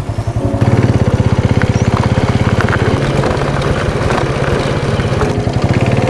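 Motorcycle engine running steadily, a fast even chug of firing pulses that gets louder about half a second in.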